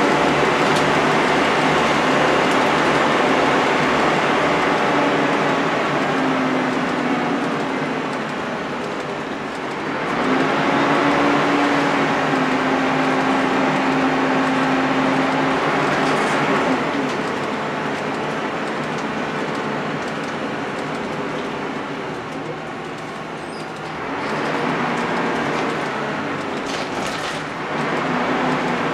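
Volvo B10BLE single-deck bus heard from inside the saloon while driving: the rear-mounted diesel engine pulls under load, eases off twice and picks up again. Road and body noise run underneath.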